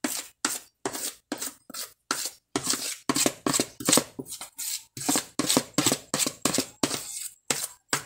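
Cake batter being scraped out of a plastic mixing bowl into a baking pan: short scraping strokes against the bowl's side, repeated about three times a second.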